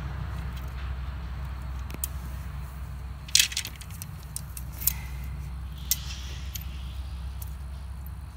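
Greenhouse fiber frame poles clicking and knocking as they are handled and fitted together. The loudest is a sharp clatter about three and a half seconds in, and single clicks follow about a second and two seconds later, over a steady low rumble.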